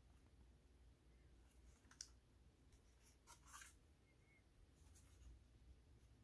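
Near silence with a few faint plastic clicks and light rubbing as a DualSense charging station's white plastic panels and base are handled, one click about two seconds in and a short cluster a little after.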